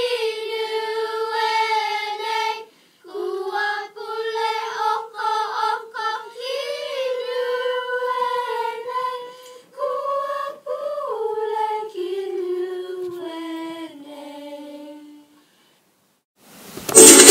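A choir of children singing unaccompanied, a slow melody in separate phrases that steps lower towards the end and stops about fifteen seconds in. Just before the end a loud music track with shakers cuts in.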